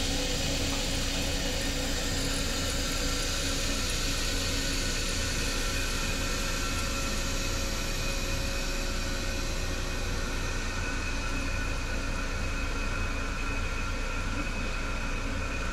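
Compressed natural gas flowing through a refuelling nozzle into a bus's CNG tanks: a steady rushing hiss over a low hum, with a few faint steady tones.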